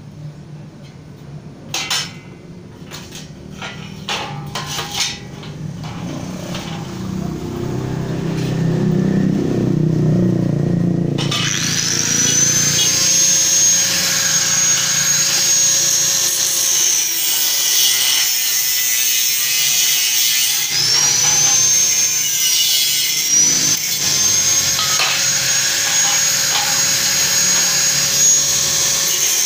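Handheld angle grinder with a cut-off disc cutting hollow square steel tube. It starts abruptly about a third of the way in with a loud high whine, and the whine sags in pitch as the disc bites into the steel, then climbs back, twice. Before it starts, a few sharp knocks of steel pieces being handled.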